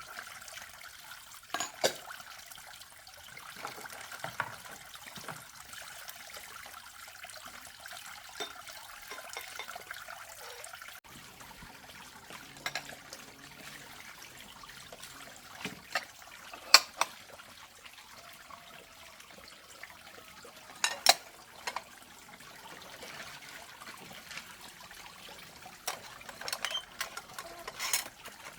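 Water running and trickling, with sharp clinks and knocks now and then. The background changes abruptly about eleven seconds in.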